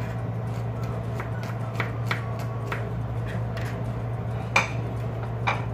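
Kitchen knife knocking on a plastic cutting board while garlic is minced: a few sharp, separate taps, the loudest about three-quarters of the way through, over a steady low hum.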